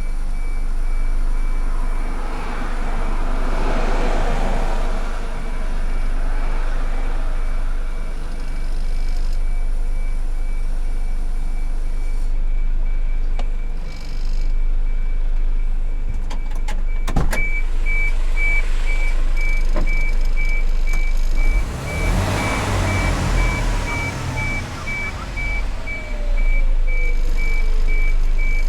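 Mitsubishi Fuso Super Great truck running, with a rapidly repeating high beep throughout that gets louder a little past the middle, and, late on, a whine that falls steadily in pitch. The truck has an abnormal noise that the dealer puts down to the turbocharger.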